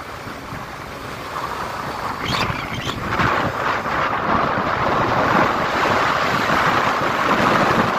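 Wind rushing over the microphone of a moving motorcycle, with engine and road noise under it; it gets louder about three seconds in.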